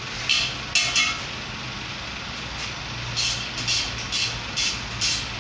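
Ratchet wrench tightening bolts on a metal wall-mounting bracket: short bursts of ratchet clicking on each back-stroke. There are three bursts in the first second, then a run of about five at roughly two a second from about three seconds in, over a steady low hum.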